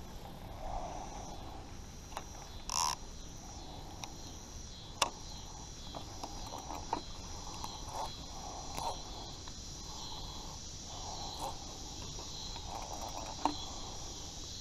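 Steady insect chorus, with a few sharp clicks and a brief rustle scattered through; the loudest click comes about five seconds in.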